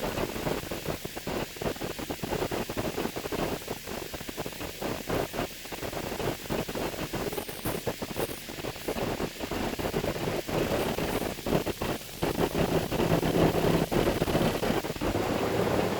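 Concrete mixer truck driving, with rough, rattling road and engine noise; a steady low engine hum comes in about twelve seconds in.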